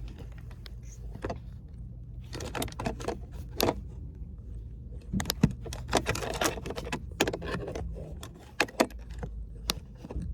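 Irregular clicks, taps and rattles of objects being handled inside a car, over a low steady hum.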